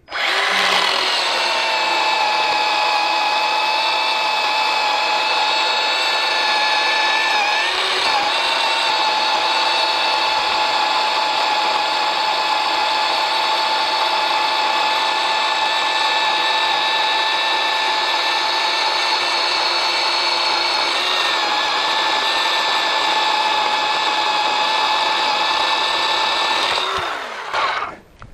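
Bauer battery chainsaw cutting through a fallen cherry log, its motor and chain running with a steady whine for about 27 seconds. The pitch sags briefly twice as the chain bites under load, and it cuts off near the end.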